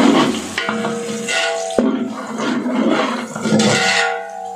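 Sliced onions deep-frying in hot ghee and melted beef fat in a large metal pot, sizzling and bubbling steadily as a slotted spoon stirs through them while they brown. There is one sharp knock about two seconds in.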